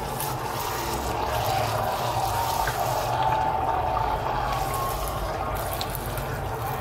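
Puris deep-frying in hot oil, sizzling and bubbling as a slotted spoon presses and bastes them. The sizzle eases somewhat near the end, over a steady low hum.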